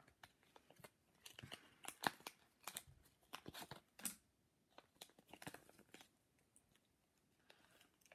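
Faint crinkling and rustling of small plastic packaging with scattered light clicks and taps as small plastic parts are worked out of a bag; the sharpest clicks come about 2 and 4 seconds in.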